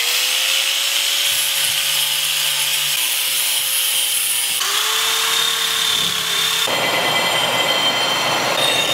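Electric angle grinder running with a steady whine, grinding the scale off a forged steel axe head. Near the end it changes to a bench belt sander grinding the steel edge, a rougher noise without the whine.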